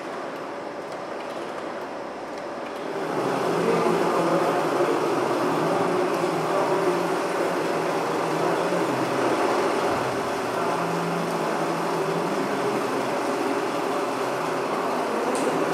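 Slide carousel projector running: a steady whir from its cooling fan and mechanism, which gets louder about three seconds in.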